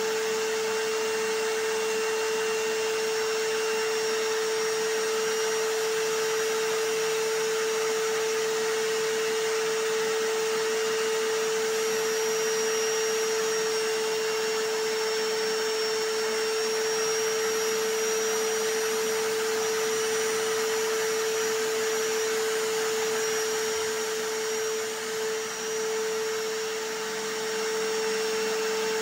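A vacuum cleaner and a hammer drill running together without a break as continuous white noise: a dense, even hiss with a strong steady motor hum. The level dips briefly a little before the end.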